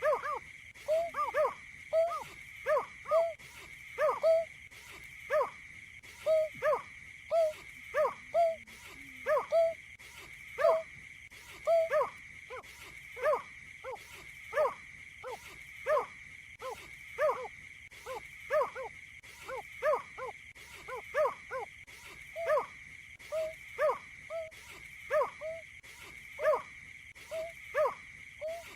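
A marsh bird giving a long series of short, low hooting calls, roughly one and a half a second, over a steady high insect-like hum.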